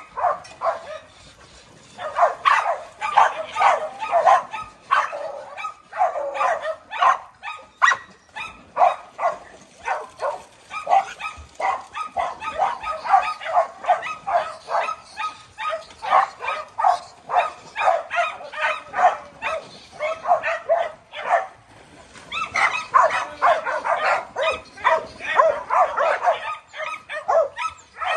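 A pack of dogs barking and yipping excitedly, many barks overlapping in quick succession, with a short lull about a second in.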